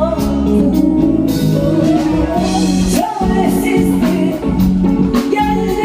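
Live Turkish folk song: a singer over instrumental backing with a steady percussion beat.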